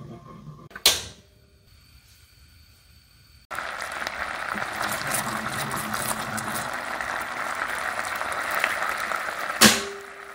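Gochujang and sweet-chili sauce bubbling and sizzling in a wok as it comes to a boil, starting suddenly a few seconds in, with a metal utensil stirring through it. There is a sharp click about a second in and another near the end.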